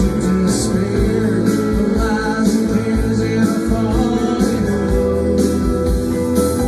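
Rock band playing a song live: guitars over a steady drum beat, with singing.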